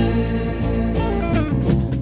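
1970s Zamrock recording: a psychedelic rock band playing, with sustained chords and a few sharp strikes.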